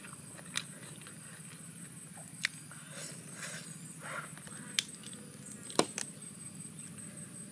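Fresh leafy greens snapped and torn by hand: a handful of sharp crisp snaps, the loudest about six seconds in, with light leaf rustling in between. A steady high insect drone runs behind.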